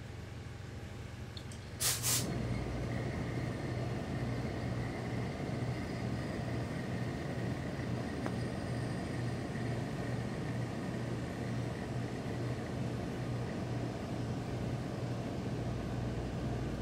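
Pressing equipment comes on with a short hiss about two seconds in, then runs with a steady drone and hum while a gravity-feed iron is pressed on the mink coat without steam.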